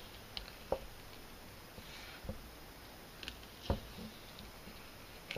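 Scattered light taps and clicks of a fillet knife being worked to cut the skin from a fish fillet, with two sharper knocks about three seconds apart.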